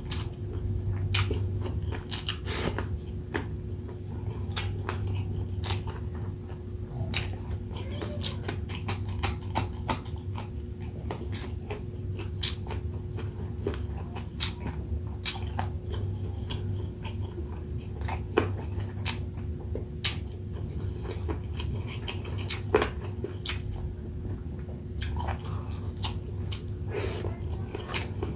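Close-miked eating of grilled chicken and rice: chewing and biting, with frequent irregular wet mouth clicks and smacks over a steady low hum.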